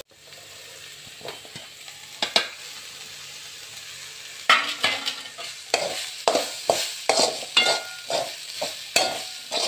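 Steel spatula stirring and scraping soya chunks and flattened rice around a metal kadai over a faint frying sizzle. For the first few seconds only the steady sizzle and a single click are heard; from about halfway through the spatula scrapes about twice a second.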